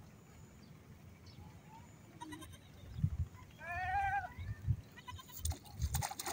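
A goat bleats once, a short wavering call about four seconds in, over a few low thumps. Near the end, water splashes at the fishing line as a hooked fish thrashes at the surface.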